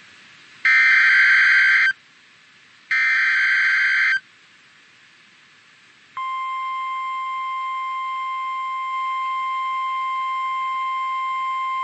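NOAA Weather Radio Emergency Alert System sequence. First come two bursts of the SAME digital header, each a little over a second long and a second apart. Then, after about two seconds of faint radio hiss, the steady 1050 Hz warning alarm tone starts and holds, heralding a severe thunderstorm warning.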